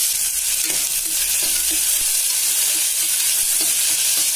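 Chopped onions sizzling in hot oil in a pressure cooker pot. A metal spoon stirs them, its strokes against the pot coming about two or three times a second over the steady frying hiss.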